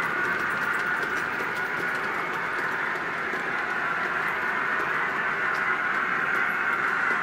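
Märklin HO-scale model train running along the track: a steady whirring rumble of motor and wheels, with faint clicks.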